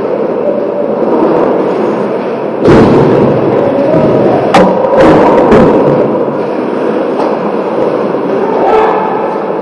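Ice hockey play on a rink: a steady scrape and rumble of skates and rink noise, with a loud thump about three seconds in and a quick run of three sharp stick-and-puck cracks around five seconds in.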